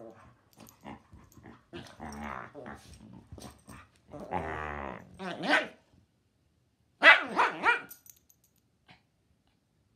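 Two dogs play-fighting, growling and grumbling at each other in short pitched bursts, with a longer growl about four seconds in. About seven seconds in come three quick barks, the loudest sounds here.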